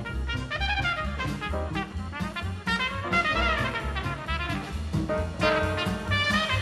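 Background jazz music: brass lines running up and down over a steady beat.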